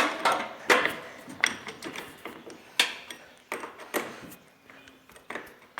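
Irregular metallic clicks and knocks, about one every half second to a second, from a battery being taken out of a riding lawnmower.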